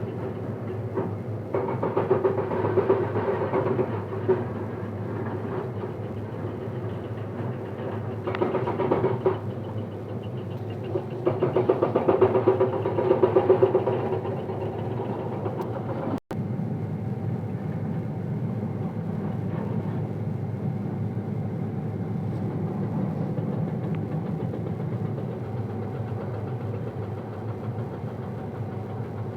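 Hydraulic breaker on a Komatsu excavator hammering stone in three bursts of rapid blows over the running diesel engine. After a brief dropout about halfway through, only the engine is heard, running steadily.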